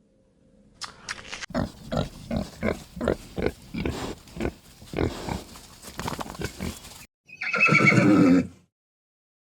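A farm animal grunting over and over, about three grunts a second, then a loud call lasting about a second near the end.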